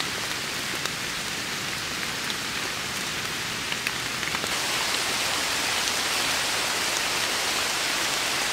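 Steady rain falling on forest leaves, with scattered drop ticks, growing heavier about halfway through.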